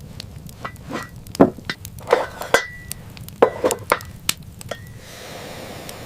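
A series of irregular sharp knocks and clinks from hard objects being handled, several with a brief ringing note, ending in a second of steady faint hiss.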